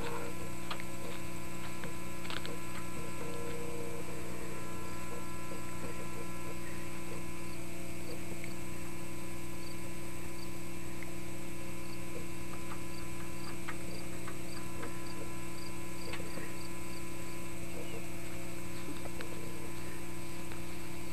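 Steady electrical hum, even and unchanging throughout, with a few faint ticks and small noises above it.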